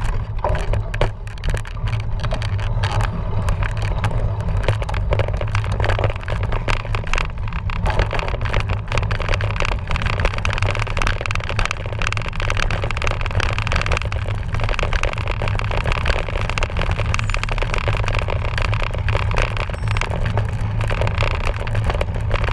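Cyclocross bike riding over rough trail: a constant rattle and clatter of the frame and parts, with steady wind rumbling on the microphone.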